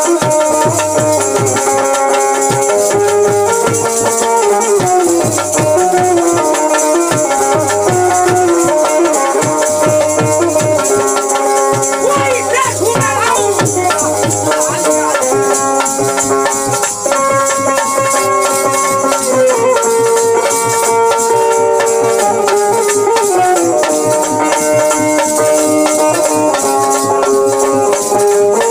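Instrumental Bhojpuri folk music: a dholak drum keeps a regular beat under a sustained keyed melody, with a steady high jingling of hand percussion on top.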